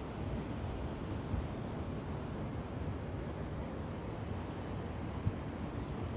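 Steady outdoor background noise with a faint, steady high tone.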